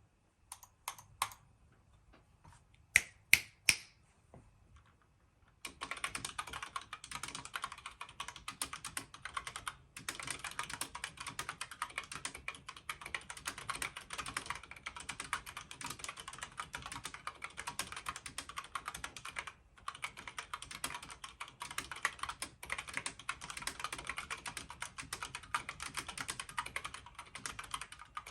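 Logitech K845 mechanical keyboard with brown switches and PBT double-shot keycaps on O-ring dampeners, typed on. A few separate clicks come in the first four seconds, three of them the loudest, about three seconds in. Steady fast typing follows from about six seconds in, with brief pauses near ten and twenty seconds.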